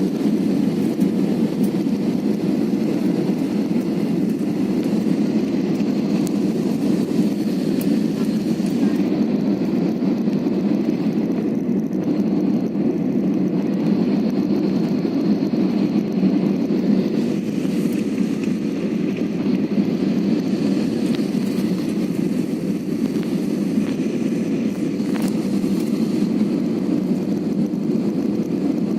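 Steady, loud rumble of an airliner's engines and airflow heard inside the passenger cabin, with a faint steady hum running through it.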